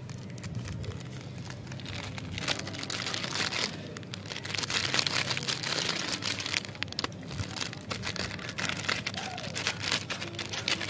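Plastic candy wrappers crinkling and crackling as they are handled and squeezed: first a clear cellophane sachet, then a shiny foil-plastic wrapper. The crackling is loudest in the middle.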